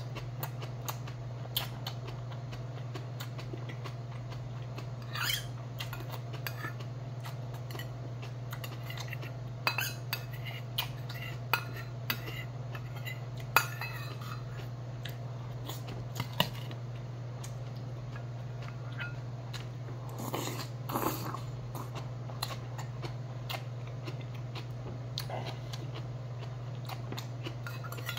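A metal spoon clinking and scraping against a small stainless-steel bowl, in scattered light taps with a couple of sharper clinks about halfway through, over a steady low hum.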